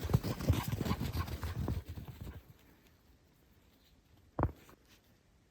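Footsteps crunching through deep snow, quick and irregular, stopping after about two seconds. One short soft thump follows a couple of seconds later.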